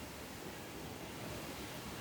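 Faint steady hiss of room tone, with no distinct events.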